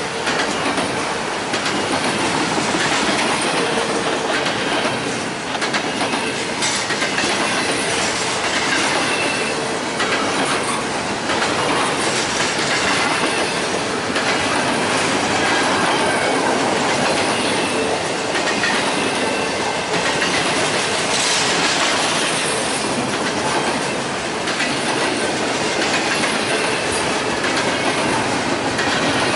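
Train rolling past steadily, its wheels clicking over the rail joints, with a faint high wheel squeal.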